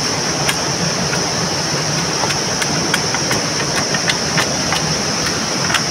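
Steady rush of a stream flowing over stones, with a constant high-pitched hiss above it and scattered light clicks.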